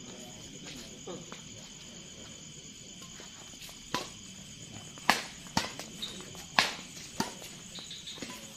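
Badminton rally: rackets smacking the shuttlecock back and forth, a run of sharp hits about half a second apart starting about four seconds in, the loudest around the middle. Underneath is a steady high chirring of insects.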